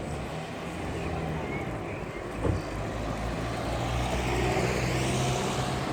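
Steady low engine hum of a vehicle, with a single short knock about two and a half seconds in and a hiss that grows louder near the end.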